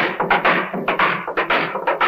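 A cooper driving iron hoops down onto an oak barrel with a hammer and hoop driver: a steady run of sharp ringing metal strikes, about three to four a second.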